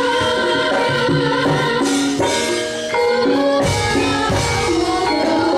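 Live Javanese gamelan music: a steady beat of drum strokes under many struck, ringing pitched notes.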